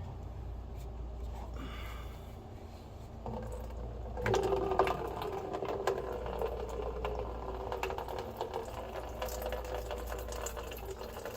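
Plastic drain-trap cap of a washing machine's drain pump being worked loose with a ratchety, mechanical rattle, then about four seconds in dirty water starts pouring out of the trap into a bucket, splashing steadily.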